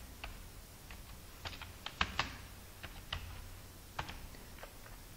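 Quiet computer keyboard typing: about ten separate keystrokes at an irregular pace as a short word is typed, over a faint low steady hum.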